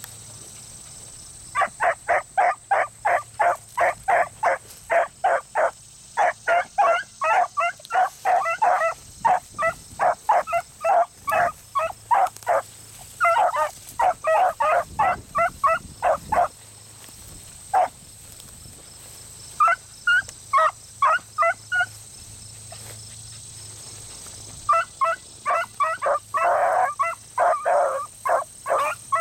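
Beagles giving rapid chop-mouth barks, about four a second, in long runs that stop for a few seconds and start again near the end: hounds giving tongue on a rabbit's scent.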